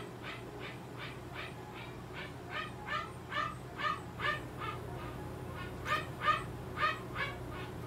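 An animal's short, high-pitched cries repeated about two to three times a second, with a brief pause past the middle and the loudest cries near the end.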